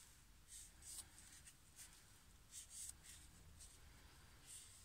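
Near silence with a few faint, soft rustles: a crumpled wad of paper towel being dabbed against the wet painted stem of a small wooden fishing float.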